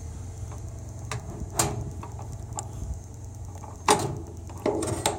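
A few short knocks and clunks over a steady low rumble, the loudest about four seconds in, with a brief ringing tail.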